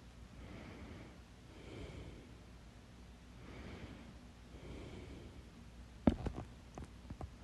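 A person with hiccups breathing audibly in and out, about four soft breaths, then a sharp hiccup about six seconds in, the loudest sound, followed by a few small clicks.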